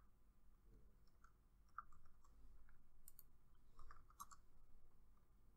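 Near silence with a few faint, scattered computer keyboard and mouse clicks as numbers are typed into fields.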